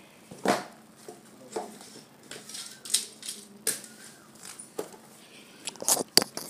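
Scattered clicks and knocks of a hard plastic B-daman toy being handled and set down on a cardboard board, with a quick cluster of sharper clicks near the end.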